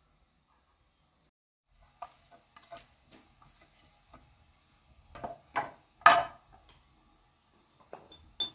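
Dish handling: scrapes and several sharp knocks as grated onion is tipped and scraped from a white dish into a glass mixing bowl, the loudest knock about six seconds in. A short ringing clink of small clay spice cups comes near the end.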